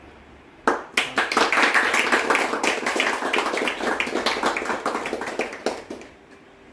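A small group of people clapping, starting just under a second in and dying away about a second before the end.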